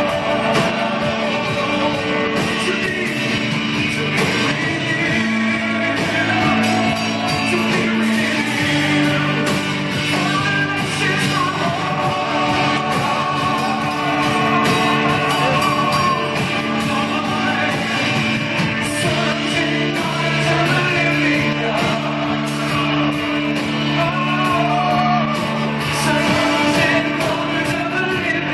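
Live worship music: a singer's voice over sustained chords from a band, sounding in a large hall.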